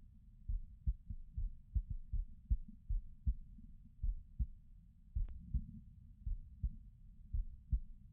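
Human heartbeat, muffled and low: a steady rhythm of lub-dub thumps, a little faster than one beat a second. One brief faint click about five seconds in.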